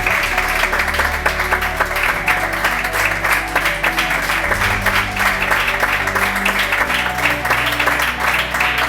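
Audience applauding, dense and steady, over music with slow, sustained low notes.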